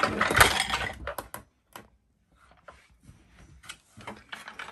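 Toy kitchen cups and pots being handled and knocking together: a busy jumble of clatter in the first second, then scattered light clicks and knocks.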